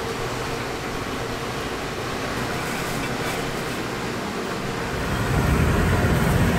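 Steady street traffic noise, with a low vehicle rumble growing louder about five seconds in.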